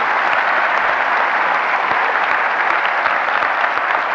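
Large audience applauding, a dense steady clapping that holds at full strength.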